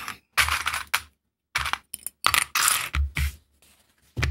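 Stiff heavy fabric strap pieces being picked up and shuffled on a cutting mat, with rustling and the clatter of small plastic sewing clips, in a string of short bursts.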